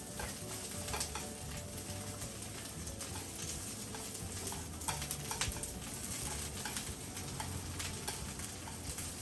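Cabbage sizzling as it is stir-fried in a frying pan, with long cooking chopsticks clicking and scraping against the pan every second or so.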